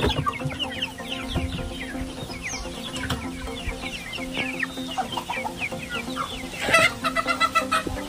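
A flock of native (nadan) chickens calling: many short falling chirps throughout, and near the end a loud run of rapid clucks.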